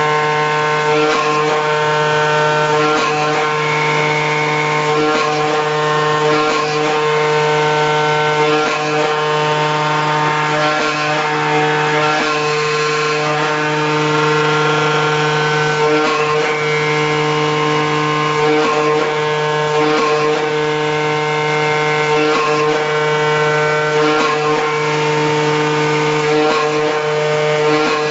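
CNC flatbed cutting machine running as its tool head cuts a vinyl coil mat: a steady whine of several tones, some of the higher tones coming and going as the head changes direction.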